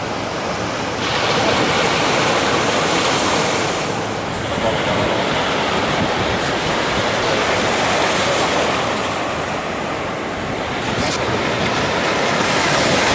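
Ocean surf breaking and washing up the beach at the water's edge, a steady rush that grows louder about a second in and then swells and eases as the waves come in.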